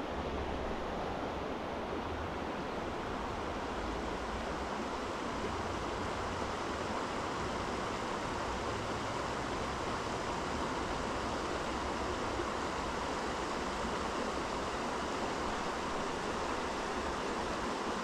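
Steady, unbroken rushing of a mountain stream's running water.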